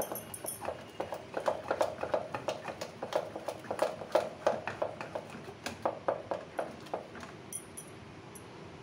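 A wooden spoon mashes cooked whole moong beans in an aluminium pressure cooker, knocking against the pot several times a second. The knocking stops near the end.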